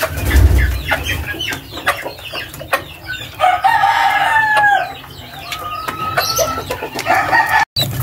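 Chickens pecking feed from a plastic trough, a run of quick taps, with clucking; a rooster crows about halfway through, and a shorter call follows a couple of seconds later. The sound drops out briefly near the end.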